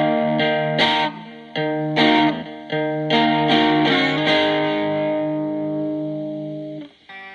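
Distorted electric guitar played through a breadboarded Distortion+ clone, with a diode substitution box supplying the clipping diodes. A quick run of struck chords, then one chord held and slowly fading until it is cut off sharply near the end.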